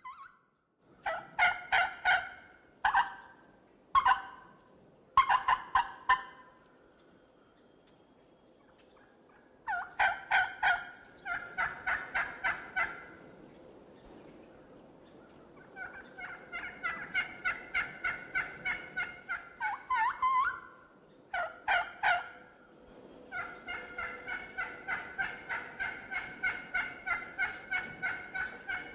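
Wild turkeys gobbling. Several short, loud rattling gobbles come in the first few seconds. From about ten seconds in there are longer runs of quick, repeated notes.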